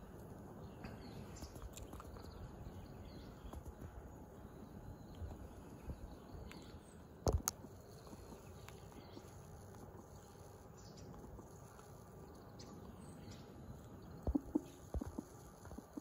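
Steady low outdoor background noise with faint short high chirps. A sharp knock comes about seven seconds in, and a cluster of knocks comes near the end.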